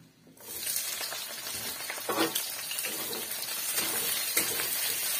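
Chopped onion sizzling in hot oil in a kadhai along with potatoes, the sizzle starting suddenly about half a second in as the onion goes into the pan, with a spoon knock about two seconds in.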